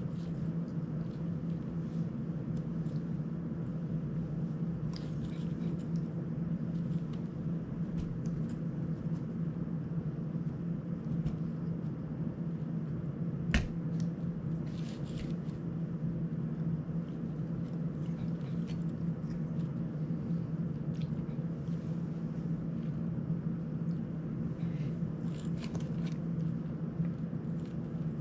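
Steady low hum throughout, with scattered faint clicks and taps of small drone parts and tools being handled, and one sharper click about halfway through.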